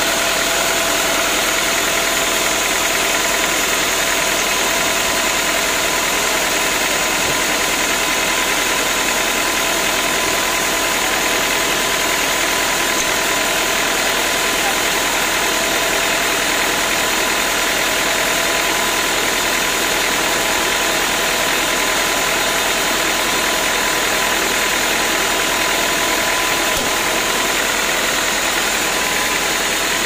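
Band sawmill running steadily between cuts: a constant machine drone with a few steady tones, unchanging in pitch and level.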